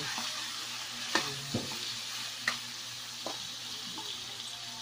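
Chicken pieces sizzling as they sauté in oil in a metal wok, with a steady frying hiss. A metal spatula stirs them, clicking sharply against the wok a few times.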